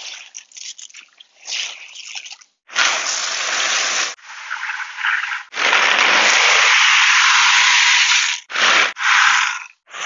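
Hydroton expanded clay pebbles poured from a plastic bucket into a water-filled grow bed: a rushing clatter in several pours, the longest about three seconds, then two short bursts near the end. It begins with a softer crackle of the wet, floating pebbles being stirred by hand.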